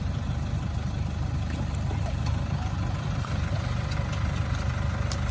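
A 4x4 truck's engine idling steadily, a low even rumble, while the truck sits stuck in mud. A few faint ticks sound over it.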